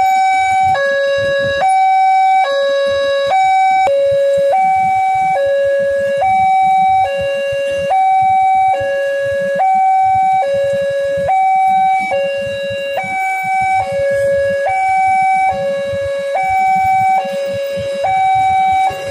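Railway level-crossing warning alarm: a loud two-tone electronic signal alternating steadily between a low and a high tone, each held just under a second. It sounds while the barrier is down, warning that a train is approaching.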